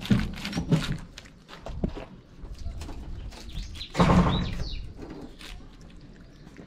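A cat chewing dry kibble and wet food from a plastic tray: a run of quick, crisp crunching clicks. About four seconds in there is a louder burst of sound with high chirps, like small birds.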